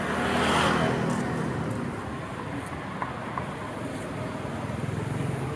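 Road traffic: a vehicle's engine hums past, loudest in the first second, over a steady rush of traffic noise.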